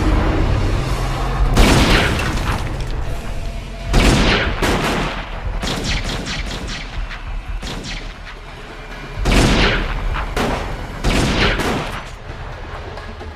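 Film gunfight sound effects: repeated volleys of gunshots, among them pump-action shotgun blasts, over a low droning music score.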